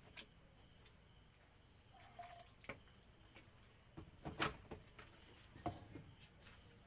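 Crickets chirping in a steady high drone, with a few sharp clicks of a metal spoon against a plate; the loudest click comes about four and a half seconds in.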